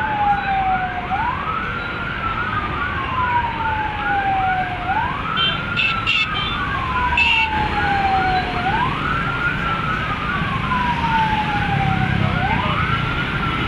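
Emergency vehicle siren sounding two patterns at once: a slow wail that rises quickly and then falls over about three seconds, repeating about every four seconds, with a faster chirping yelp of about two or three chirps a second above it. Road traffic runs underneath.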